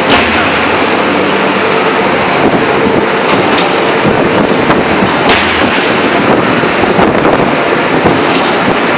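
Loud, steady industrial din of a 2000-ton open-die forging press at work, broken by sharp cracks every second or so.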